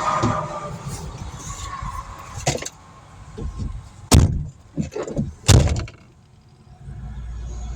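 A few knocks and thuds of an SUV's door or rear liftgate being worked, the two loudest about four and five and a half seconds in. A steady low rumble comes in near the end.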